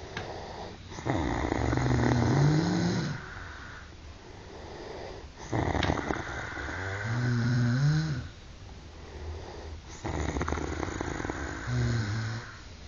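Men snoring loudly: three long snores, about four to five seconds apart, each ending in a rising, pitched tone.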